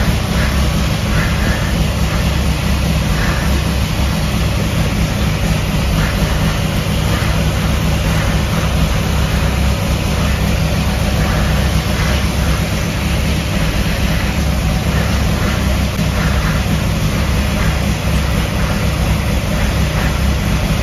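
Freshly built 377-cubic-inch Clevor small-block V8 running steadily at a fast idle of about 1400–1500 RPM during its first run for break-in.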